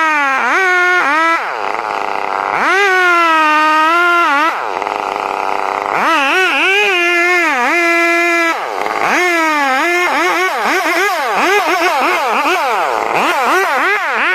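Two-stroke chainsaw engine running at high revs, its pitch sagging under load and picking up again. It drops back toward idle and is revved up again several times, with quick throttle blips near the end.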